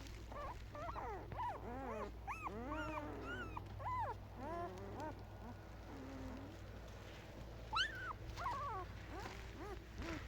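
Husky puppies whimpering and whining, a run of short high calls that rise and fall, crowded together in the first half and thinning out later, with one sharper rising yelp about eight seconds in.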